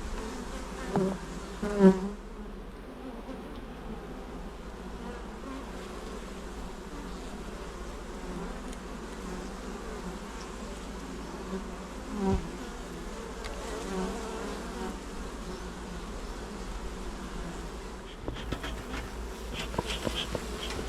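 Honeybee colony buzzing steadily in an open hive, with the knocks and clicks of wooden hive frames being handled: a sharp knock about two seconds in, another about twelve seconds in, and a run of light clicks near the end.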